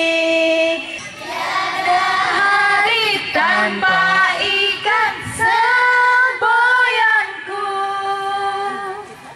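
Women singing a simple children's song into microphones with a group of schoolgirls singing along, opening on a long held note before the tune moves through shorter notes.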